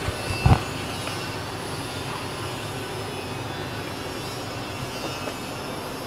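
A single low thump about half a second in as the HDD caddy bay, with its hard drive inside, is set down on the carpeted work surface, over a steady background hum.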